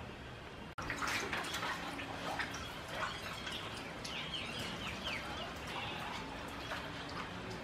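Water splashing and dripping in a plastic basin as raw pork is rubbed and washed by hand, in short irregular splashes.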